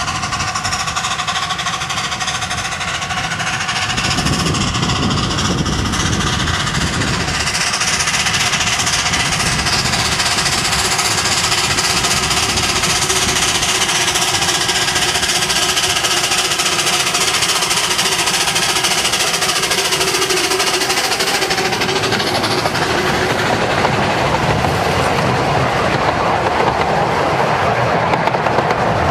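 Narrow-gauge steam locomotive working toward and past, its rapid exhaust beats getting louder about four seconds in, then the clatter of its carriages and wagons rolling by on the rails near the end.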